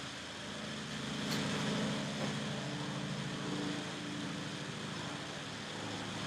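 Faint steady low hum with light background noise.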